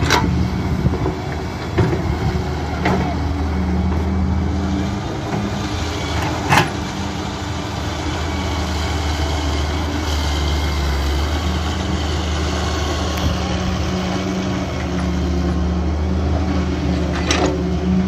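Diesel engines of a tracked excavator and a Massey Ferguson tractor running steadily while the excavator digs soil and loads it into the tractor's trolley. A few sharp knocks cut through, the loudest about six and a half seconds in.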